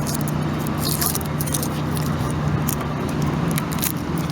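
Foil wrapper of a Kinder Surprise chocolate egg crinkling as it is unwrapped by hand, many small crackles over a steady low background hum.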